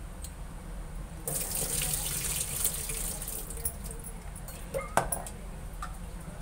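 Wash water poured off soaked urad dal from a steel pot, splashing for about two seconds, then a sharp clink of the steel pot set down about five seconds in.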